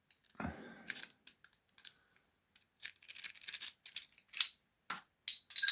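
Hybrid lock-pick rake worked in and out of the keyway of a TESSI 60 mm padlock, the steel pick scraping and clicking over the pin tumblers. It comes in two bursts of irregular scratchy clicks with a short pause between them.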